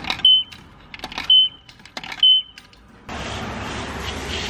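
Quarters dropping one after another into a self-serve car wash coin box, each clunk followed by a short high electronic beep as the credit registers, three times about a second apart. About three seconds in, a steady rushing hiss of high-pressure spray starts.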